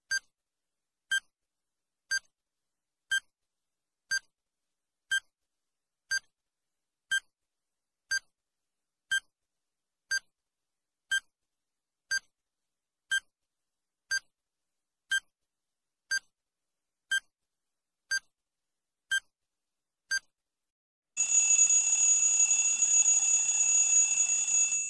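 Countdown timer sound effect: a short electronic beep once a second for about twenty seconds, then the beeps stop and a loud, harsh alarm with several steady tones sounds for the last four seconds as the count reaches zero.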